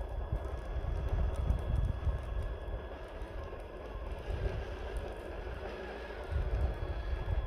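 Small electric RC crawler's motor and geared drivetrain whining as it creeps up a loose dirt slope, with faint ticks of tyres on grit. An uneven low rumble of wind on the microphone runs under it.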